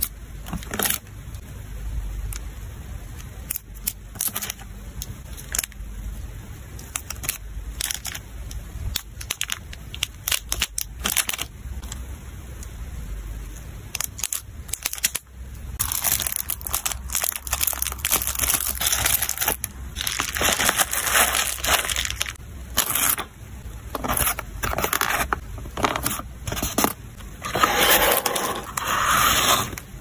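Hands handling plastic-sleeved photocards and packing materials in a cardboard mailer box: many short clicks and taps of hard plastic sleeves in the first half, then longer, louder stretches of crinkling plastic and bubble wrap from about halfway on.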